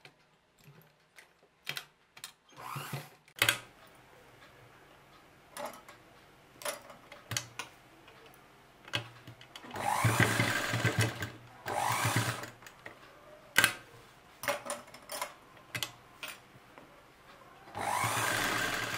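Electric sewing machine stitching piping into a neckline seam in short runs of about a second each, stopping and starting as the fabric is guided, with sharp clicks and fabric rustle in the pauses.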